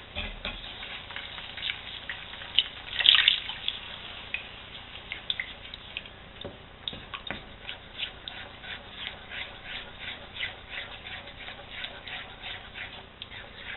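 Chicken broth being stirred into a thick cream-and-roux sauce in a frying pan with a wooden spoon: liquid sloshing and the spoon scraping the pan in a steady rhythm of about two to three strokes a second.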